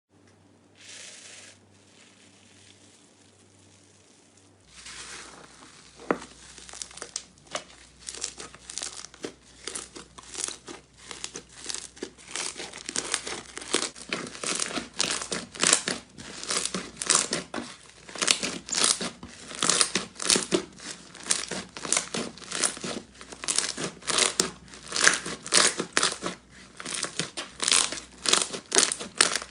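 Slime being squeezed and pulled by hand, making quick repeated crackling, crinkling sounds that start about five seconds in and grow louder. Before that there is only a faint hum and one brief hiss.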